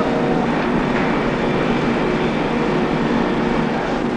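Numerically controlled milling machine cutting a Mi-2 helicopter main rotor hub body under a spray of coolant: a steady machine noise with a few faint steady tones running through it.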